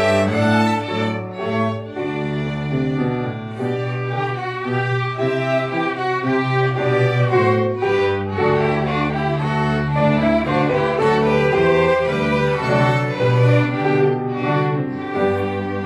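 An ensemble of six violins playing a piece together, bowed notes changing continuously without a break.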